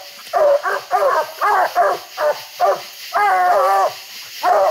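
Treeing Walker coonhounds barking treed at the base of a tree: quick, pitched chop barks about two a second, with one longer drawn-out bawl about three seconds in. This is the treed bark that says a raccoon is up the tree.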